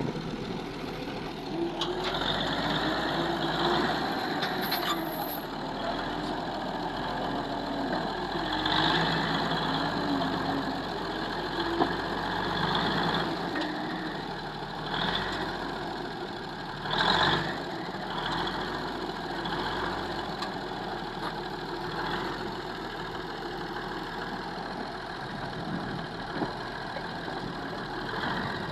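Komatsu D85A-18 crawler bulldozer's diesel engine running, its pitch rising and falling with the throttle as the dozer is driven onto a lowbed trailer. A short loud knock comes about two-thirds of the way through.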